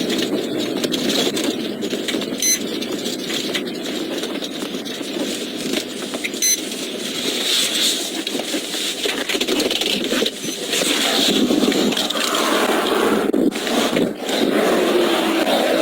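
Steady road and tyre noise of a police patrol car driving, heard from its in-car recording, growing louder and rougher in the last few seconds.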